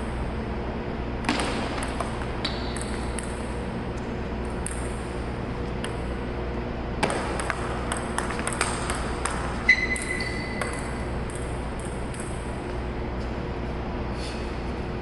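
Table tennis rally: the celluloid ball clicks off paddles and table in quick runs of hits, busiest about seven to ten seconds in, over a steady low hum. A short high ring follows the loudest hit, near ten seconds.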